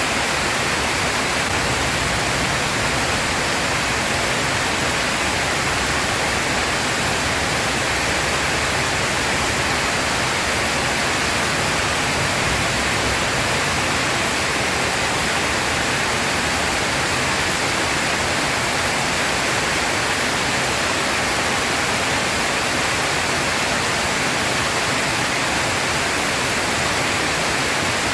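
Heavy rain pouring down in a steady, even hiss, with no thunder.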